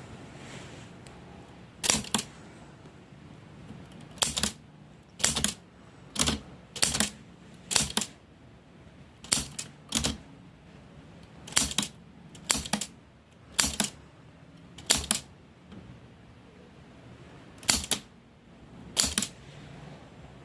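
Old mechanical typewriter typed on slowly, key by key: about fourteen sharp clacks at uneven intervals of roughly a second, most heard as a quick double strike.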